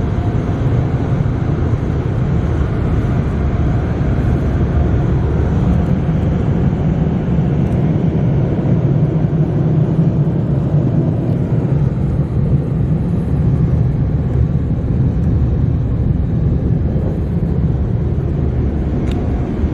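Car wash tunnel dryer blowers, air-cannon style that the filmer takes for older Sonny's units, blowing air over the car and heard from inside the car: a steady, loud rush of air with a deep rumble.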